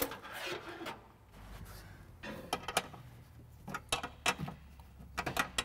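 Handling noises as a throttle cable and its fittings are worked at the sheet-metal firewall under a truck's dash: faint rustling, then a scattered handful of small sharp clicks and taps in the second half.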